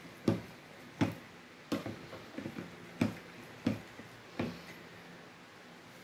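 Metal fork stirring a wet flour-and-yeast batter in a plastic tub, clicking against the tub's sides and bottom about once or twice a second. The clicking stops about four and a half seconds in.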